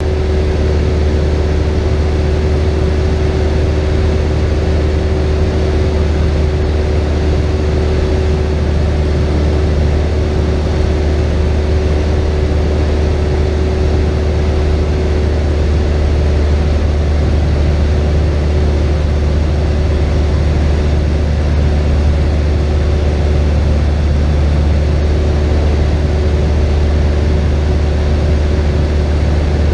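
Cessna 172's piston engine and propeller running steadily in flight, heard from inside the cockpit as a loud, unchanging deep drone with a steady hum above it.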